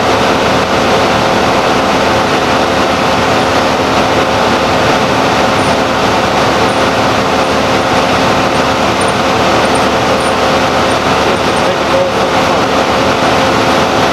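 A motor running steadily and loudly, a constant machine drone with a hum that holds the same pitch throughout.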